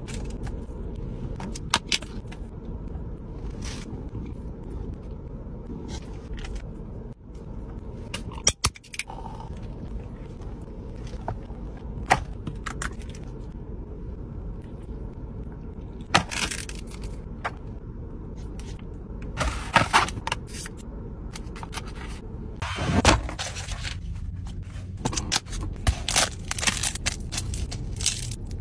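Steady low hum inside a car cabin under scattered clicks, crackles and scrapes of hands handling food, with denser bursts several times.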